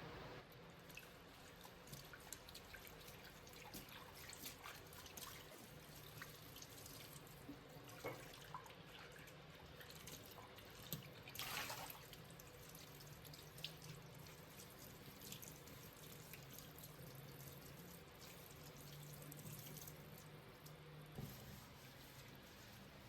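Faint drips and small splashes of water at a sink, with one brief rush of water a little past halfway through.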